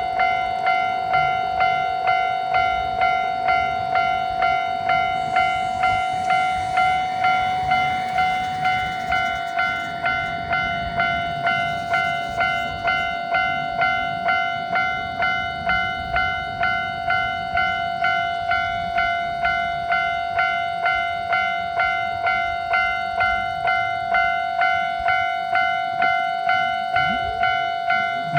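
Japanese level-crossing alarm ringing steadily, its electronic 'kan-kan' bell striking about three times every two seconds. Partway through, the running noise of a passing HSOR100 diesel railcar rises and fades under the bell.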